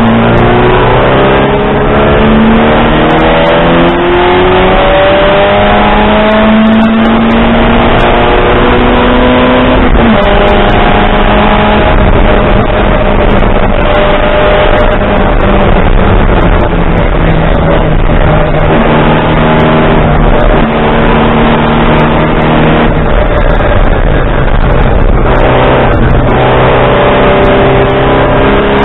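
Race car engine heard loud from inside the cockpit under hard acceleration. The revs climb for the first several seconds, drop sharply at a gear change about ten seconds in, then run high. The revs fall in steps as the driver lifts and changes down past twenty seconds, then climb again near the end.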